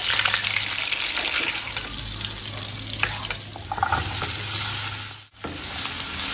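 Beef steaks sizzling as they are laid into hot, bubbling fat in a frying pan. Partway through, cut vegetables (carrot, potato, green pepper, cauliflower) are tossed into a pan and sizzle as they are stirred with a spatula. The sound breaks off briefly about five seconds in.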